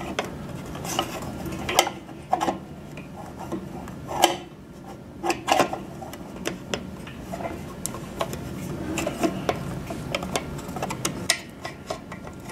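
Scattered, irregular clicks and knocks of a Cambium ePMP Force 100 radio housing and its mounting bracket being handled and fitted together, with SMA cables pulled through. A steady low hum runs underneath.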